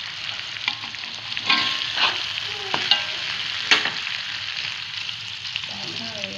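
Food sizzling as it fries in oil in a pan, with a utensil stirring and scraping it and clinking sharply against the pan several times.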